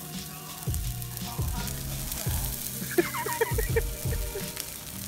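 Bonfire of dry Christmas trees burning fiercely, with a dense, continuous crackling and popping of needles and twigs. A brief pitched, falling sound comes about three seconds in.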